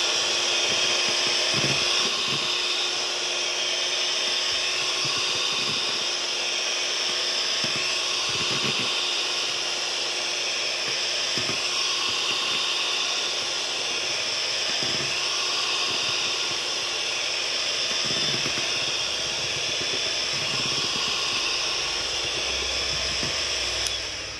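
Electric hand mixer running steadily on its first (lowest) speed, a continuous motor whine as its beaters whip cream to stiff peaks in a steel bowl; the motor winds down at the very end.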